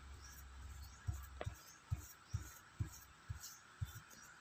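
Faint, dull thumps about twice a second as a flat paintbrush strokes and presses green paint across paper on a table. A low hum lies under the first second or so.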